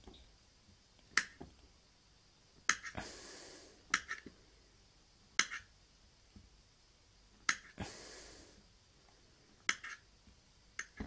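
Knife slicing a banana, the blade tapping down on the cutting surface at each cut: about seven sharp taps a second or two apart, with two brief hissing scrapes between them.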